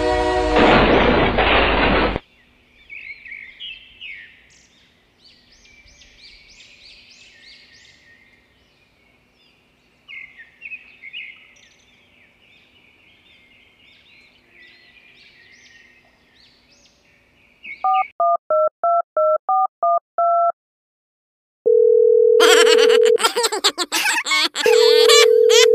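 A loud horn blast cuts off about two seconds in. Faint bird chirps follow over a low steady hum. Then comes a run of rapid alternating two-tone electronic beeps, and a telephone dial tone broken by loud clicking.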